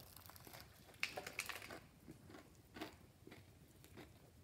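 Faint crunching and chewing of a bite of chicken leg coated in burnt, crispy Shake and Bake breading. A cluster of crunches comes about a second in, with a few more after.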